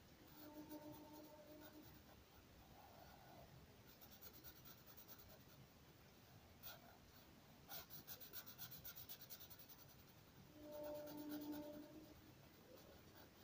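Felt-tip marker scratching and rubbing faintly on paper, in quick back-and-forth strokes of about eight a second as it colours in a shape. A faint steady low hum comes in twice, near the start and near the end.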